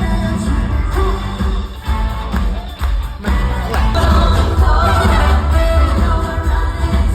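Loud pop-style music from a live stage show: singers over a band with a heavy, continuous bass.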